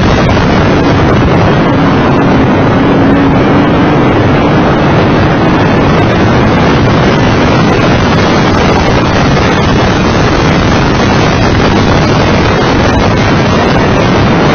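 Steady wind buffeting the microphone at track speed, with the Mitsubishi FTO GPX's engine running under load beneath it. A faint engine tone rises a little in the first few seconds.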